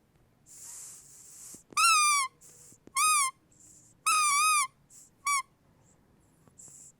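A squeaky dog toy squeezed repeatedly: four squeaks, each rising then falling in pitch, the third one longest, with a breathy hiss of air through the squeaker between them.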